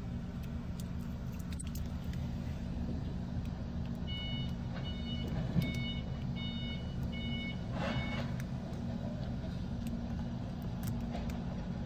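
Car engine idling with a steady low hum inside the cabin. About four seconds in, the car's electronic warning chime beeps six times in an even rhythm, then a fingernail gives a brief scratch at the edge of the protective film on the screen trim.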